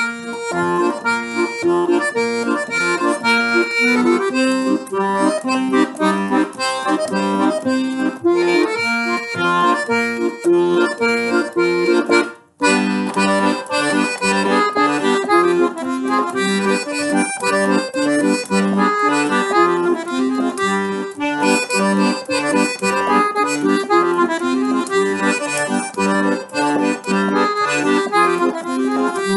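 Solo piano accordion playing a lively klezmer skotshne, a melody over a steady rhythmic bass and chords, with a brief break about twelve seconds in.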